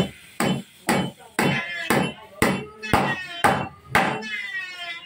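Hammer blows on the long wooden beam of a wooden plow, about two a second, each followed by a short ringing. Nine strikes in all, stopping about four seconds in.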